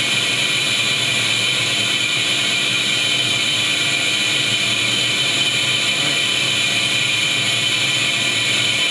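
Extrusion blow molding machine for HDPE bottles running: a steady, unchanging mechanical whir with a hiss over it.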